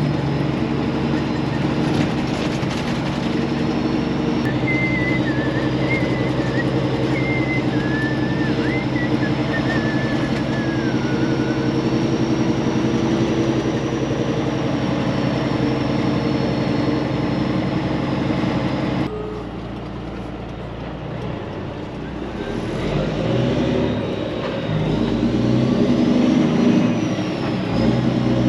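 Peterbilt 379 truck's diesel engine running steadily, then dropping off suddenly about two-thirds of the way through before building up again as the truck pulls away under power.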